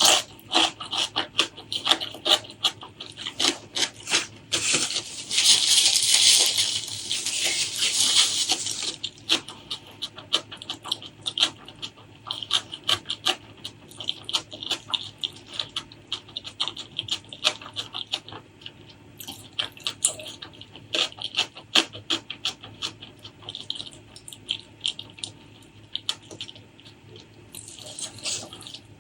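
Close-miked mukbang eating sounds: wet chewing, lip smacks and mouth clicks while eating spicy pork leg curry with rice. A longer, louder hissing stretch comes from about five to nine seconds in.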